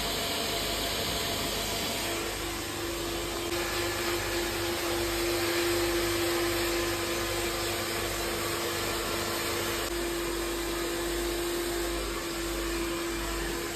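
Handheld blow dryer running steadily, a constant rush of air. A steady motor whine sets in about two seconds in and holds.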